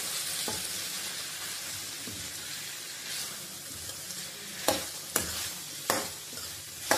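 Chicken pieces sizzling in a stainless steel kadai as a steel spatula stirs and scrapes them, knocking sharply against the pan about four times in the second half. The cooking liquid has boiled off, so the chicken is now frying dry.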